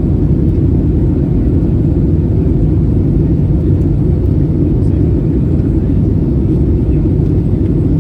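Steady low rumble inside the cabin of an Airbus A320neo (A320-271N), with its Pratt & Whitney geared turbofans running and the airframe carrying the noise.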